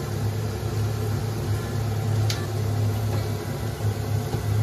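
A steady low hum runs throughout, with one light tap about two seconds in.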